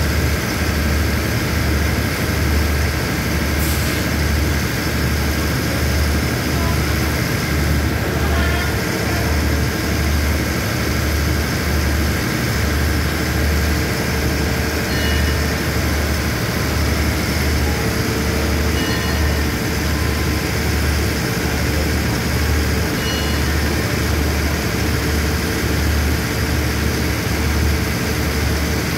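Diesel engines of a standing passenger express train idling, a steady low pulsing hum.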